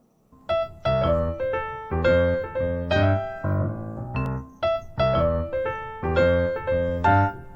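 Background piano music: a bright melody over repeated bass chords, starting about half a second in.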